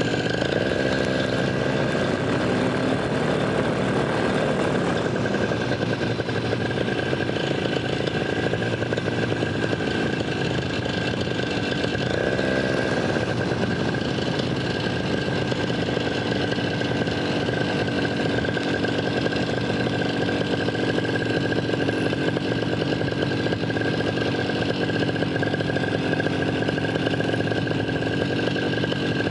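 Vittorazi Moster 185 two-stroke paramotor engine and propeller running steadily at cruise power in flight. The engine pitch shifts briefly twice with the throttle, about a second in and again around twelve seconds.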